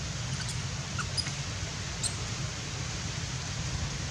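Steady hiss of outdoor background noise with a low rumble, and a few brief high-pitched squeaks in the first two seconds.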